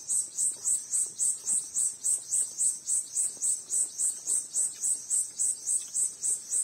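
Insect chirping: a high, even pulsing call repeating about four times a second without a break.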